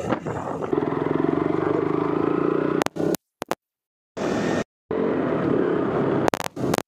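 Motorcycle engine running while riding, a steady buzz from about a second in. The sound cuts off abruptly to silence several times.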